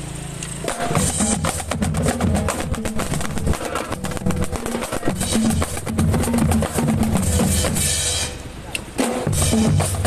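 Marching drumline playing: snare drums rattle a fast pattern over pounding bass drums, with cymbal crashes. The drumming thins out briefly about eight seconds in, then comes back in full.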